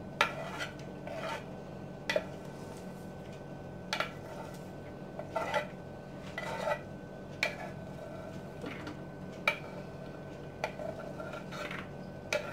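Chopped vegetables being scraped off a wooden chopping board into a bowl: short, irregular scrapes and taps on the board, roughly one a second.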